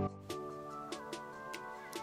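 Background music: soft sustained chords with a light, evenly ticking beat.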